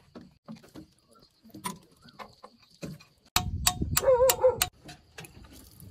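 Small metal fuel-line fittings and bolts clicking and clinking as they are handled against the tractor's steel frame, a run of about six sharp clicks a little past three seconds in. A short wavering animal call sounds over them at about four seconds.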